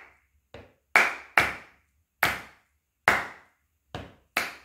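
Hand claps beating out a short rhythm exercise in 4/4, about seven sharp claps at uneven spacing, two of them softer.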